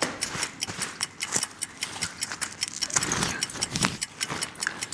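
SMDV Flip Beauty 20 beauty-dish softbox being popped open and set up umbrella-style: a quick run of clicks and rattles from its frame, with fabric rustling.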